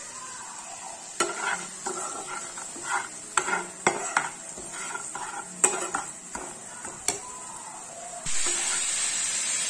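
Metal spatula scraping and knocking in a nonstick frying pan as it stirs a thick spice paste that is being fried, with a low sizzle under the irregular strokes. About eight seconds in, a louder steady sizzling sets in abruptly.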